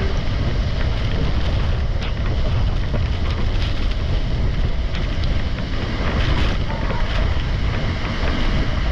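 Steady, loud rushing of rain-swollen water pouring over a waterfall, deep and unbroken.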